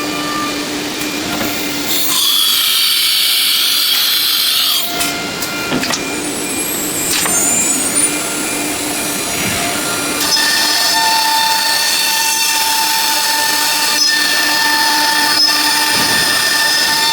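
ELE-1530 nesting CNC router at work on wood: the spindle whines steadily over a constant cutting noise, with a louder, shriller stretch a couple of seconds in and a steady pitched whine from about ten seconds in.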